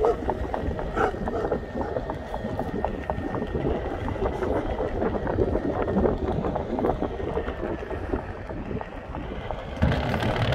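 Wheels rolling over a concrete path: a steady rumble dotted with short clicks, with wind buffeting the microphone. The rumble grows louder near the end as the path reaches a footbridge.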